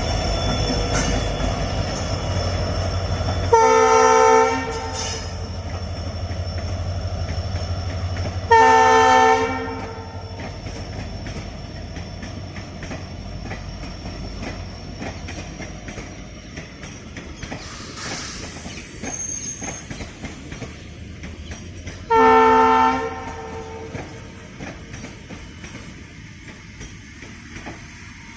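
WDP4B diesel locomotive running heavily under load, its engine rumble fading away over the first half, with three horn blasts of about a second each at about 4, 9 and 22 seconds in. Fainter clicking of train wheels over rail joints follows as the rumble dies down.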